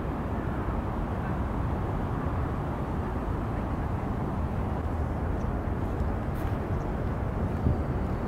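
Steady low outdoor rumble with no distinct events, the even background hum of a city.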